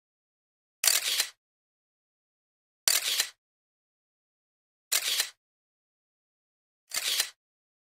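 A short, noisy editing sound effect with a sharp start, heard four times at even two-second intervals with silence between. It marks each change of photo in a slideshow.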